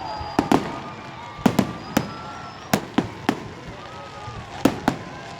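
Fireworks going off: about ten sharp bangs at irregular intervals, some coming in quick pairs.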